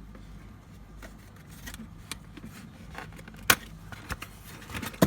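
A cardboard box being opened and its contents handled: scattered rustles and light knocks, with a sharp click about three and a half seconds in and another near the end.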